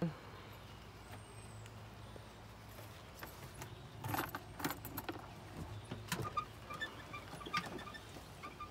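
A short thump at the start, then keys jingling and clicking as a key is handled and fitted into a golf cart's key switch: a run of small clicks and knocks over a faint steady hum.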